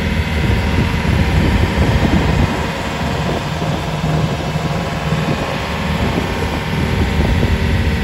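A small boat's engine running steadily under way, with the wash of water against the hull.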